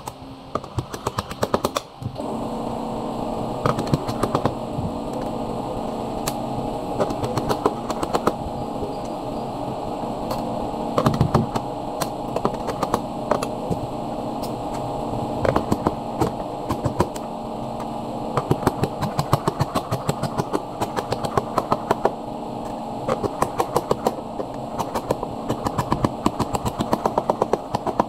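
Runs of sharp clicks and snaps as a strip is pressed by hand into the channel of an aluminium frame, over a steady hum.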